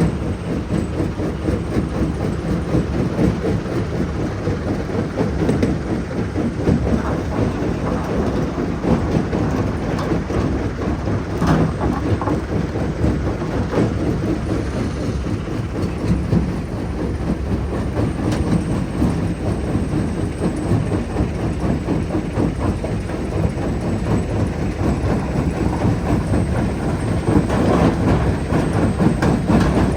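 Jonsson 1208 mobile jaw crusher running and crushing rock: a loud, steady heavy rumble with constant rattling and clattering of stone, and one sharper knock about eleven seconds in.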